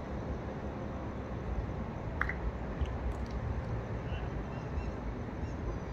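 Steady low rumble of outdoor background noise, with a brief faint click about two seconds in.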